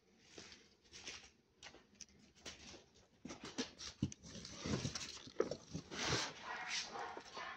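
Irregular rustling and scuffing noises, sparse at first and busier and louder from about halfway.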